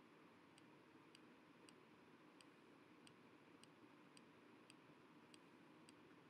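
Near silence with faint, short clicks repeating a little under twice a second over a low hiss.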